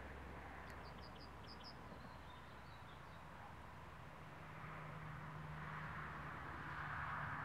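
A small songbird gives a quick run of about five short, high chirps about a second in, over a faint steady outdoor hiss that grows louder near the end.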